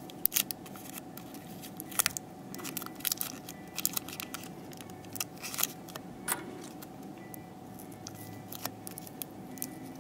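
Irregular small clicks and crackles of tape being peeled and worked off a foam popper body by hand, over a faint steady hum.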